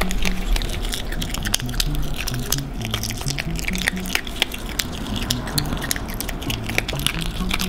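Background music with a low, stepping melody, over the irregular crunching of an otter chewing dry kibble pellets.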